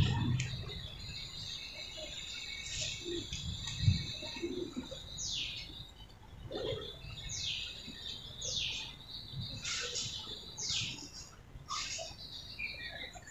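Birds chirping in the background: short, sharp downward-sweeping calls repeating every second or so, with a few high trills between them. One low thump about four seconds in.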